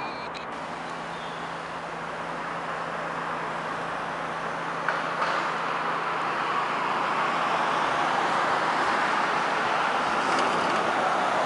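Street traffic heard from above: a steady hiss of road noise that grows gradually louder through the second half, with a brief click about five seconds in.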